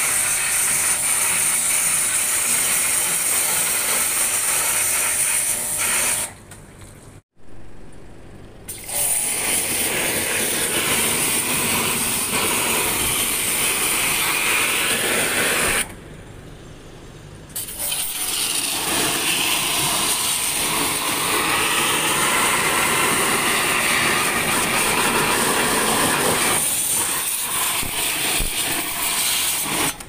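Pressure washer spraying a jet of water onto an air-conditioner condensing unit's coil, a steady loud hiss. The spray stops briefly twice, about six seconds in and again about sixteen seconds in.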